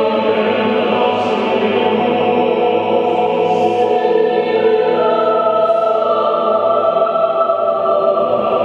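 A choir at practice, singing long sustained chords. The harmony shifts to a new chord about halfway, and the singing cuts off abruptly at the end.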